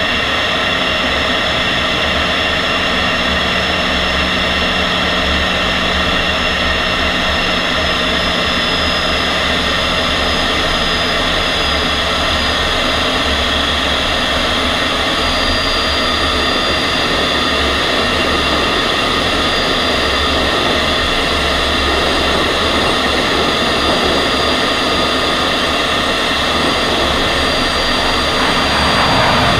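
MiG-15 jet fighter's turbojet engine running at steady power: a constant rushing noise with several held whining tones, growing slightly louder near the end.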